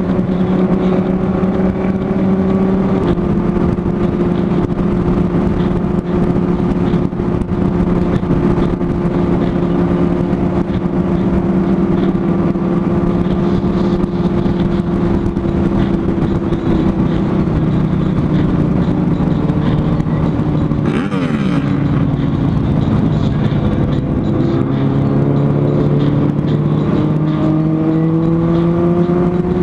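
Sport bike engine running at a steady cruise, heard from the rider's own bike, with wind noise on the microphone. Its pitch dips a little past the middle and rises again near the end as the bike picks up speed, with a brief rush of noise about two-thirds through.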